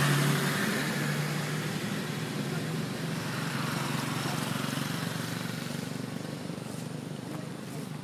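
A motor vehicle engine running steadily, slowly fading away.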